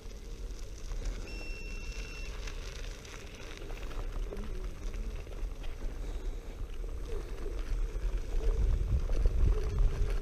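Xiaomi Mi Scooter Pro 2 electric scooter riding along a gravel path: a steady low rumble of wind and tyres with a faint, wavering motor hum, getting louder near the end. A short high beep sounds about a second in.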